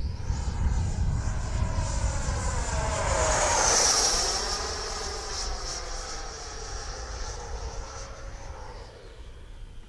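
Electric ducted fan (Wemotec 90 mm) of a scratch-built Messerschmitt P.1112 RC jet whining on a fly-past: it grows louder to a peak about four seconds in, its pitch drops as it goes by, and it fades away.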